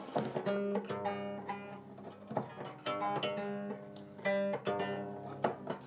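Strings of a newly made twelve-string gayageum plucked one at a time, about eight notes of different pitches. Each note rings on and fades. The maker is sounding the freshly strung instrument as its movable bridges are set.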